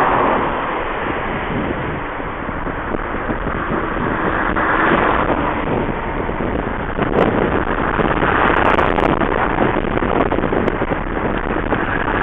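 Wind blowing hard in gusts, a steady rushing drone that swells about three times.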